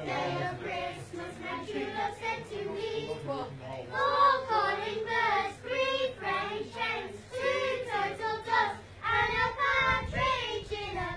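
A small mixed group of children and adults singing together from song sheets, with the children's voices the most prominent.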